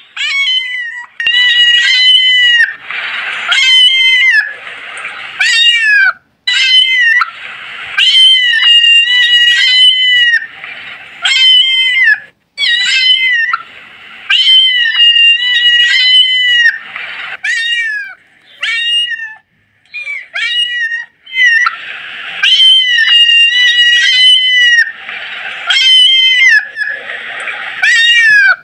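Kittens mewing: a long run of high-pitched cries, about one a second, with a few short pauses.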